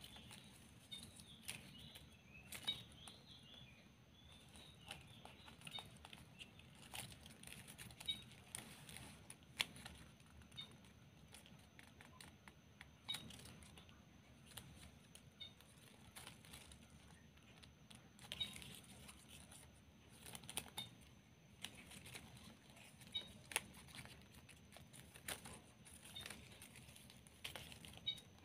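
Quiet, scattered rustling and crinkling of ribbon being folded and wrapped by hand, with occasional light clicks and taps as the fingers press the folds.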